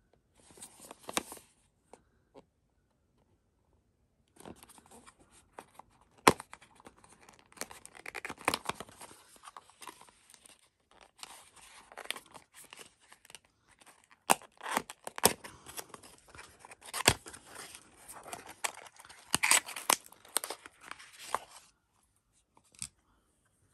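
Hands picking open a small paperboard product box and drawing out a highlighter compact. There is rustling and scraping of cardboard with sharp clicks and snaps: a short burst about a second in, then steady handling from about four seconds in until near the end.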